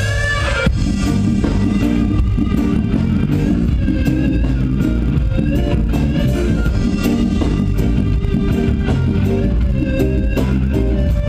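A live reggae band playing, with a heavy bass line, guitar and steady drum hits.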